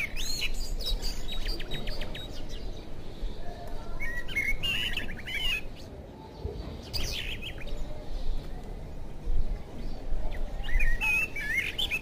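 Birds chirping in several short bursts of quick twittering calls and rapid trills, over a low rumble of background noise.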